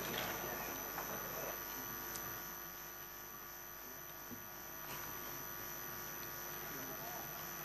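Faint steady electrical hum, made of several fixed tones, with a few soft ticks: mains hum in the sound system between speakers.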